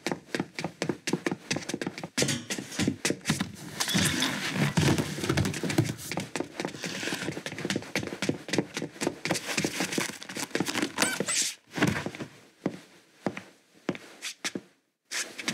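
Foley footsteps in hard-soled dress shoes on a hard floor, a quick run of heel-and-toe taps that thins out near the end.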